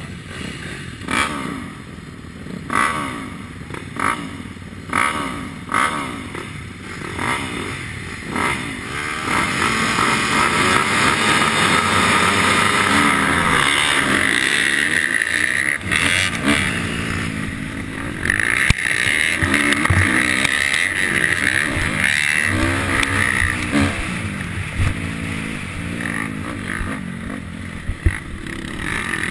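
Motocross bike engines racing, heard from a camera on one of the bikes: the near engine revs up and falls back again and again through gear changes, with other bikes close by. Several sharp knocks come in the first few seconds.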